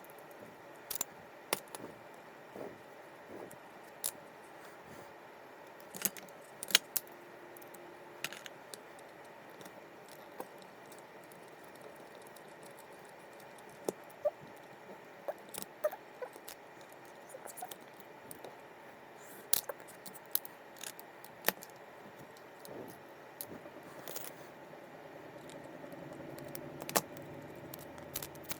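Irregular small clicks, taps and clinks of fishing reel parts and tools being handled while the reel is taken apart, over a steady low hiss.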